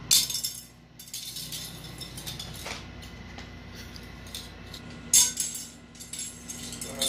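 A white plastic spoon clattering and skittering across a glazed tile floor as kittens bat and chase it: bursts of light clicking, loudest just after the start and again about five seconds in.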